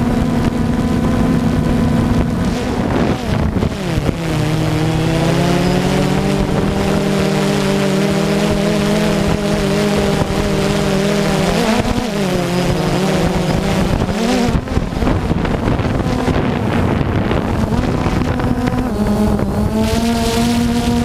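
Multirotor drone's motors and propellers buzzing steadily, heard from the aircraft itself. The pitch drops about three seconds in, rises and falls again around twelve seconds, and climbs back up near the end.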